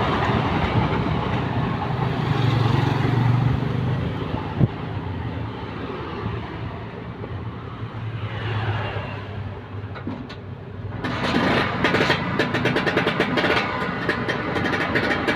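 Vespa Sprint's two-stroke engine running. About eleven seconds in, a dense run of rapid clicks and rattling comes in over it.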